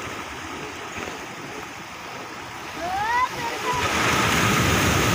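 Sea surf breaking against a boulder seawall, washing and hissing over the rocks. It swells louder about four seconds in as a wave surges up onto the stones.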